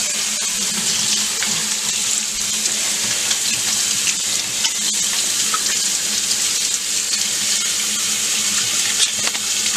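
Kitchen faucet running steadily into a stainless steel sink, the stream splashing over a bunch of asparagus being rinsed under it.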